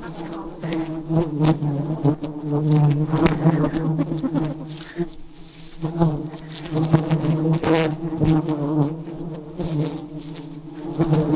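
A dense swarm of wild honeybees buzzing close around the hive, a steady droning hum of many bees at once, broken by scattered short clicks and knocks.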